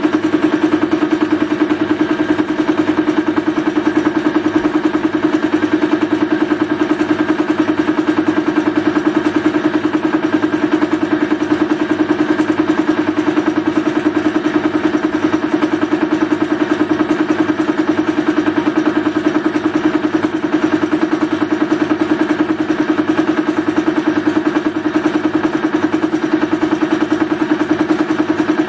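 Metal lathe running with a milling cutter spinning in the chuck, taking a light cut across a block clamped on the cross slide: a steady machine hum with a fast, even pulsing.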